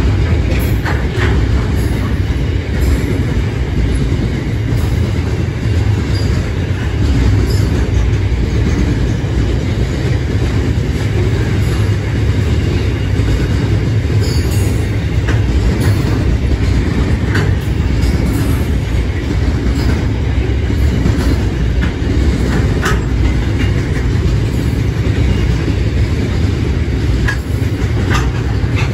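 Loaded container flat wagons of a freight train rolling past: a steady rumble of steel wheels on rail, with occasional sharp clicks scattered through it.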